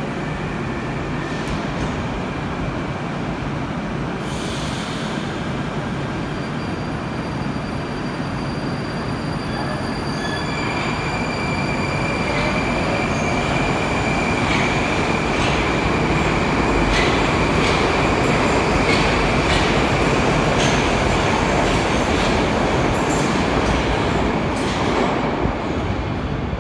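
A Moscow Metro 81-765 'Moskva' train standing at the platform, then pulling out. About ten seconds in it grows louder, with a steady high whine from the traction drive and a run of sharp clicks from the wheels over the rails as it passes, then fades as it leaves.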